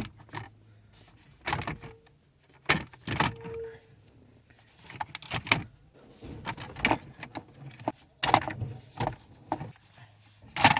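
Irregular clicks, knocks and light rattles of hard plastic dashboard trim and wiring connectors being handled, as the climate control unit is unclipped from the dash and its connectors unplugged.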